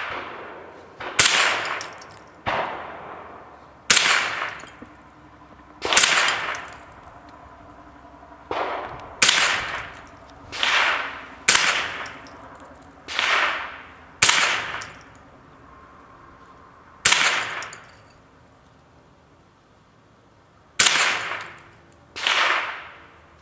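Miroku-made Winchester Model 63 semi-automatic .22 LR rifle firing about a dozen single shots at an uneven pace, each crack followed by a ringing tail, with a pause of a few seconds past the middle.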